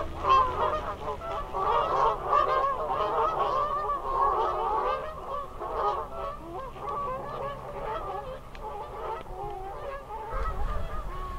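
A flock of Canada geese honking, many calls overlapping, growing fainter toward the end.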